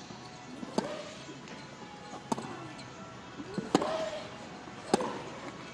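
Tennis rally: four racquet strikes on the ball, about every second and a half, alternating between the two players. Every other shot comes with a short grunt from the player hitting it.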